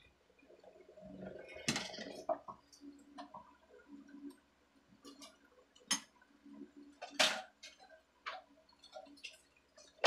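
Scattered clicks and knocks of hand tools and parts being handled and set down on a concrete floor, with the loudest knocks about two seconds in and again about six to seven seconds in.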